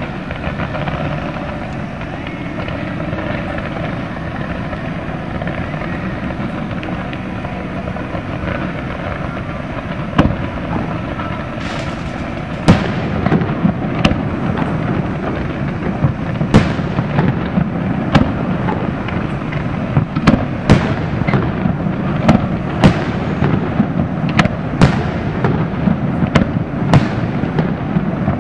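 Fireworks display: steady background noise at first, then aerial shell bursts from about ten seconds in. The sharp bangs come every second or two and more often toward the end.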